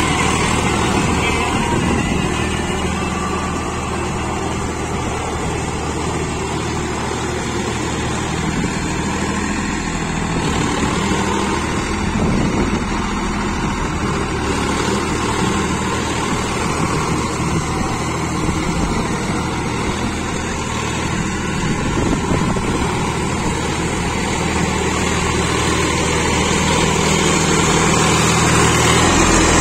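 Sonalika 50 RX Sikandar tractor's diesel engine running steadily under load while working a Shaktiman rotavator through wet paddy mud.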